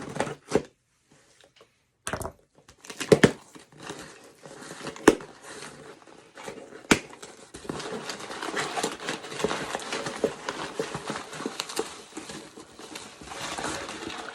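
Parcel being unpacked by hand: packing material crinkling and rustling, with several sharp snaps and tears in the first half, then near-continuous rustling from about halfway on.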